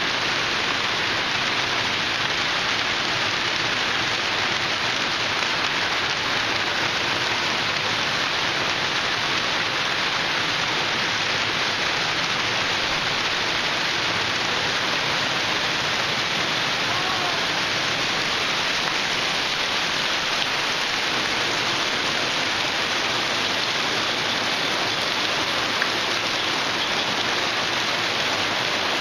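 Small hail falling thick and steady, a dense even hiss of ice pellets hitting the ground.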